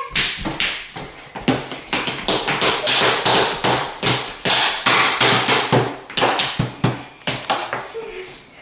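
Giant wooden spoons and spatulas whacking down on a folding tabletop, rapid irregular slaps several a second, easing off near the end.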